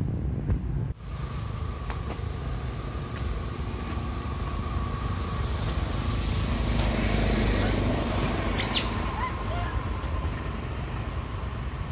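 Outdoor ambience beside a road: a low traffic rumble that swells for a few seconds in the middle, under a steady high drone. A brief high chirp sounds near the end.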